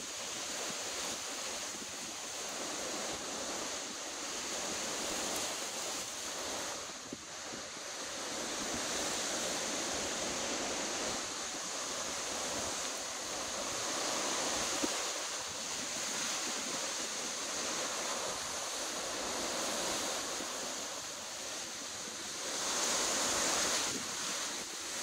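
Storm wind of about 40 mph, gusting to 60, rushing through palm fronds in a continuous rush that swells and eases with the gusts. A stronger gust comes near the end.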